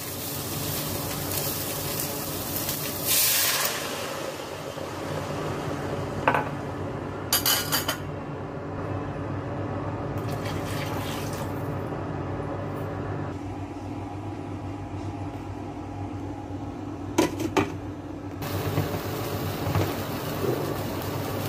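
Liquid is poured from a glass measuring cup into a stainless steel pot of braising spare ribs. A few sharp metal clanks come from the pot and its lid, over a steady background hum.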